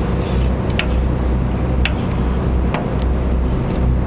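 Steady low drone of a boat's engine running, with a few sharp clicks of a fillet knife knocking against the cutting table as a fish is filleted.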